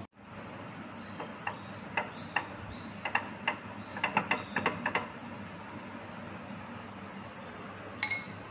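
Metal serving spoon clinking and scraping against a pot while scooping biryani, a quick irregular run of about a dozen clicks, then a single ringing clink against a glass bowl near the end.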